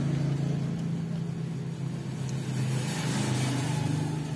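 A motor vehicle engine running with a steady hum, its pitch drifting slightly and easing off near the end.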